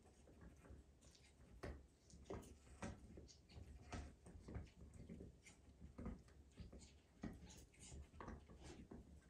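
A corgi and a young Belgian Malinois chewing red rubber toys: faint, irregular clicks and crunches of teeth on rubber, about one or two a second.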